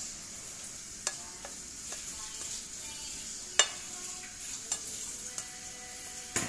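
Black plastic spoon stirring and scooping diced red bell pepper on a ceramic plate, with several short clacks of spoon on plate; the sharpest comes about three and a half seconds in. A steady high hiss runs underneath.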